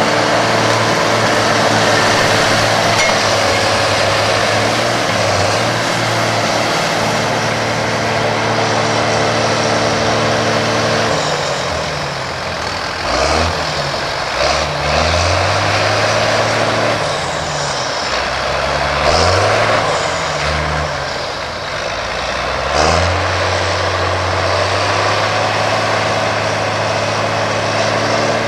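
John Deere farm tractors' diesel engines running under load while one tractor pulls the other, stuck in mud, with a tow rope. The engine note is steady at first, then revs up and down repeatedly between about 11 and 23 seconds in as the pull is worked, before settling back to a steady run.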